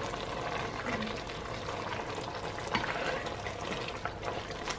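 Callaloo stew bubbling in a pot as a spoon stirs through the wet greens, with a few faint clicks of the spoon against the pot.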